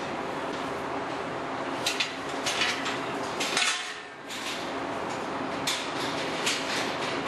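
Steel sow-stall gates and bars clanking and rattling several times, sharp metallic knocks over a steady background noise. The background dips briefly just before four seconds in.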